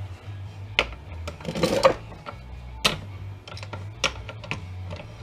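Hand tools clicking, tapping and clinking against the metal parts of a heavy-duty safety switch being dismantled for scrap: irregular sharp metal knocks, a small cluster of them a little under two seconds in, over a low steady hum.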